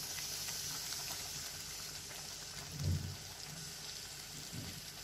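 A pot of thick rice-and-bean khichdi simmering on low heat with a soft, steady hiss, while a spatula stirs and lifts it, giving a dull knock about three seconds in and a fainter one near the end.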